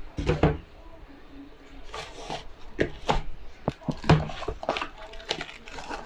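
Mechanical keyboard switches clacking: about a dozen sharp, irregularly spaced hard plastic clacks, the loudest about four seconds in.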